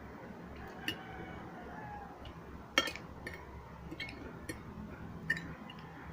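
Eating sounds from a plate of instant pancit canton noodles: a handful of sharp clicks and clinks, like a utensil tapping a dish and mouth sounds, the loudest about three seconds in, over a low steady hum.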